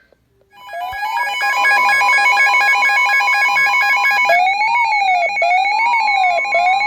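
Several electronic alert tones sounding at once from emergency alert receivers: steady and rapidly pulsing beeps, joined from about four seconds in by a siren-like warble that rises and falls about once a second. It is the alarm signalling the start of a new warning.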